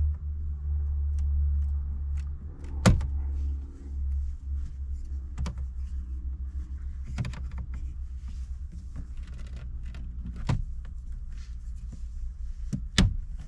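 Plastic pry bar prying a dash trim panel from its clips: a series of sharp clicks and snaps, the loudest about three seconds in and another near the end, over a steady low hum that eases after a few seconds.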